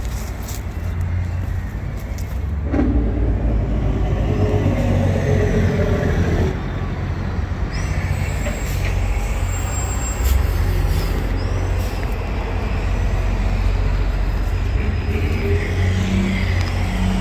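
Diesel engine of a Sany SY225C LC crawler excavator running steadily, a constant low hum.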